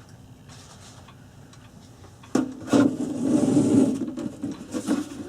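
Handling noise from an old electric advertising clock on a workbench: a sudden knock about two seconds in, then about two seconds of rough scraping as the clock case is shifted on the bench.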